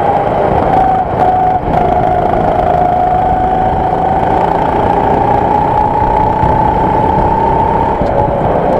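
Go-kart engine running under throttle, heard from the driver's seat, its note climbing slowly as the kart gathers speed and dropping near the end. The level dips briefly twice about a second in.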